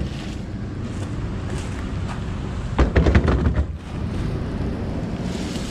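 Low rumble of wind on the microphone, with a short burst of knocks and rustling about three seconds in while a rubber tire is being handled in wet grass.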